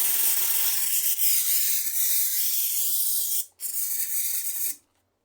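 Hand-pump pressure sprayer spraying water in a steady hiss, which breaks off for a moment about three and a half seconds in, then comes back in a second short burst that stops just before the end.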